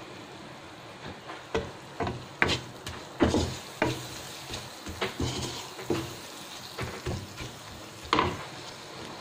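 Wooden spatula stirring and scraping prawns, onions and ground spices around a nonstick wok, with irregular knocks of the spatula against the pan over a steady sizzle of frying. The spices are being fried in the oil (kosha) and kept moving so they don't burn.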